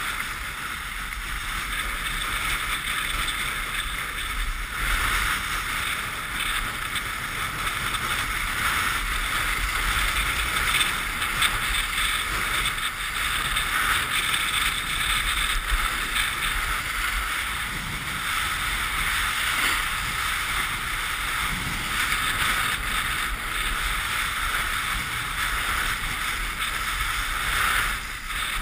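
Steady scraping hiss of a rider sliding fast over packed, groomed snow, with wind buffeting the microphone as a low rumble underneath.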